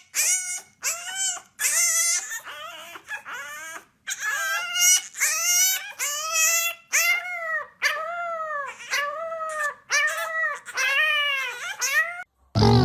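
A dog giving a long run of high-pitched whining cries, about two a second, each rising and then falling in pitch.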